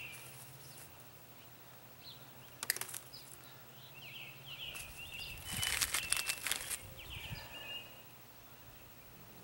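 A hummingbird's wings whirring as it flies close, a rapid buzzing whir just past halfway that is the loudest sound, with a shorter whir earlier. Short high chirps sound throughout, with a faint steady low hum underneath.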